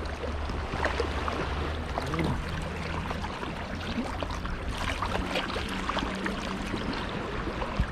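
Sea water splashing and sloshing as a horse and the man leading it wade through waist-deep water, a steady stream of small, irregular splashes.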